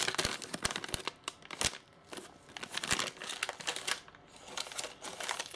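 Crinkling and rustling plastic packaging around small model-kit parts as they are handled, with irregular light clicks and crackles.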